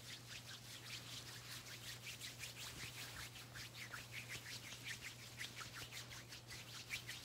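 Soft, rhythmic rubbing of lotioned hands over the microphone, about three strokes a second, over a steady low electrical hum.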